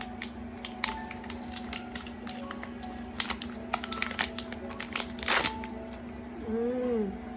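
Plastic packaging and small parts being handled: irregular crinkles and clicks, with a sharper rustle about five seconds in.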